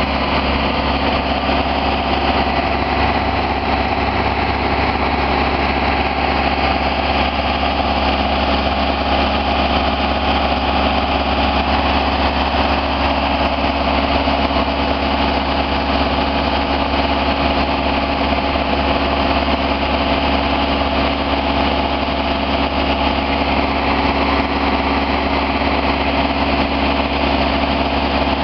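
Diesel engine of a Genie telescopic boom lift running at a steady speed.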